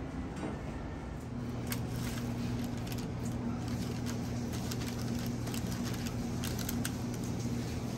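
Steady low hum of kitchen equipment, rising a little about a second in, with scattered light clicks and taps of handling at the counter.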